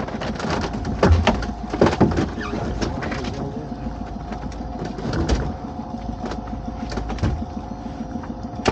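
Pot hauler on a small fishing boat winding in a crab pot's rope with a steady hum, broken by several sharp knocks and clatters as the pot comes up and over the side.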